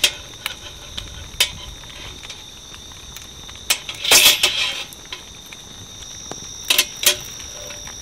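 Metal clinks of a camp-oven lid lifter against the camp oven and its wire bail handle. A few sharp clinks come in the first second and a half, a scraping rattle about four seconds in, and two more clinks near the end.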